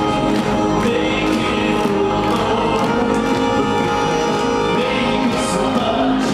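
Live band music with a violin playing and voices singing, at steady full volume.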